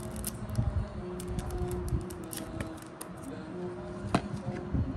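Topps trading-card pack wrapper being opened, a string of short, sharp crinkles and crackles, over soft background music.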